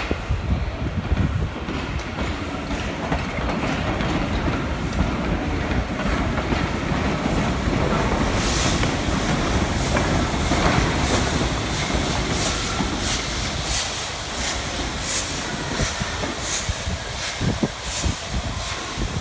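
Railway train passing with a steady rumble. About halfway through, the wheels start a regular clickety-clack over the rail joints.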